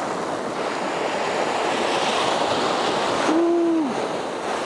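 Small surf breaking and washing up the sand at the waterline, with wind on the microphone. About three and a half seconds in, a short hooting tone rises and falls.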